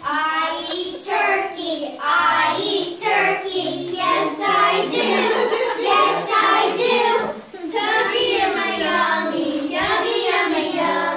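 A group of young children singing a song together, voices in unison.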